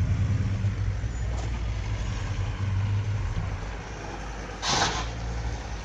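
Land Rover Discovery 4 engine running at low revs, a steady low hum, as the vehicle crawls up rock ledges. About five seconds in there is a short, loud rush of noise lasting about half a second.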